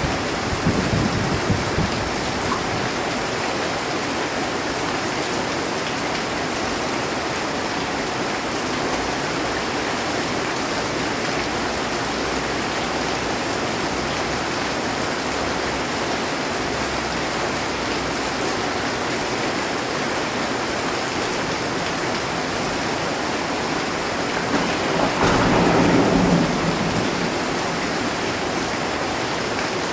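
Heavy rain falling steadily on a metal roof, with a louder roll of thunder near the end.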